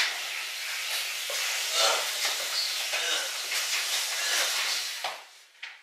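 A metal-legged glass coffee table dragged across a hardwood floor: a continuous rough scraping that stops a little before the end.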